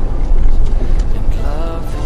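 A moving pickup truck's road and wind noise: a heavy, uneven low rumble.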